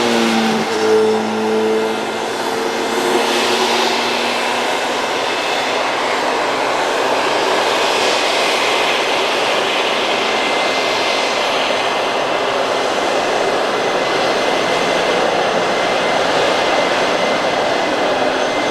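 Dassault Falcon 6X business jet's twin turbofan engines running, a loud, steady jet noise with a faint high whistle.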